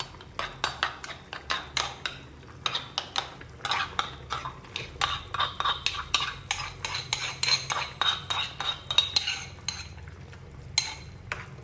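A metal spoon scraping and clinking against a metal bowl and the rim of a cooking pot in many quick strokes, as tomato and chili paste is stirred and scraped out. The strokes pause briefly near the end.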